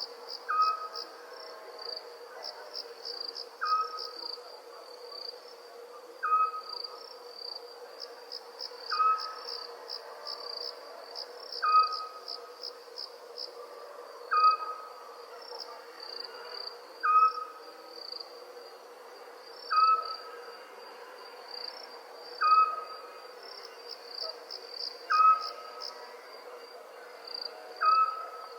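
Crickets chirping in a continuous high, pulsing trill, while an owl repeats a single short whistled note about every two and a half seconds, eleven times. A faint steady drone sits underneath.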